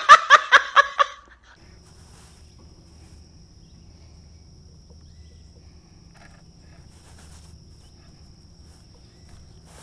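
A man laughing hysterically in a run of about six quick loud bursts that stops about a second in. After it come a faint steady low hum and a thin high steady tone.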